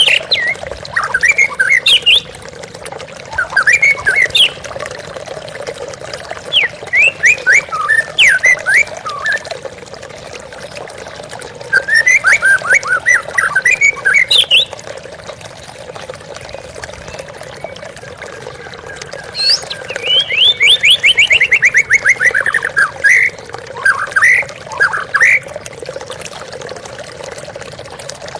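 White-rumped shama singing in bursts of rapid, varied whistled notes and trills, several phrases separated by pauses, over a steady background of flowing water.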